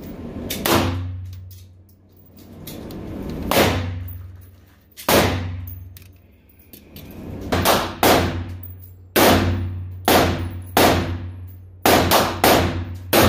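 AK-pattern rifle in 7.62×39 firing a string of single shots in an indoor range, each report ringing off the walls. The shots are spaced a second or more apart at first and come quicker and closer together over the last few seconds. A steady low hum runs underneath.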